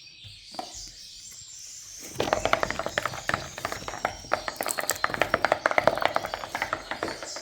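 Slime being squeezed and worked by hand, giving rapid wet crackling and popping clicks that start about two seconds in and keep on.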